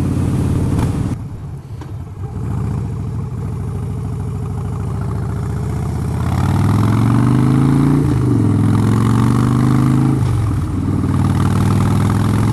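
Harley-Davidson Dyna's V-twin engine running on the road, quieter for the first few seconds and then rising in pitch as the bike accelerates. The pitch drops at a gear change about eight seconds in, and the engine pulls on steadily.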